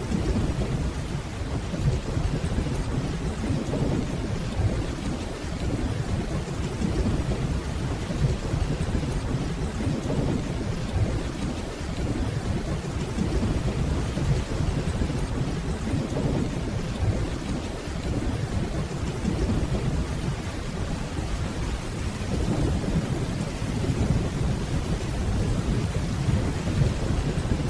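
Steady rainfall under a continuous low rumble of distant rolling thunder.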